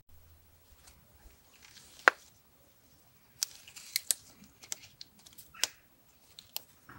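Bonsai scissors snipping ficus shoots and leaves: one sharp snip about two seconds in, the loudest, then a run of about seven more snips, with leaves rustling in between.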